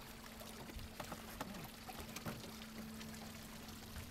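Faint lapping of small waves against a boat's hull, with a steady low hum underneath.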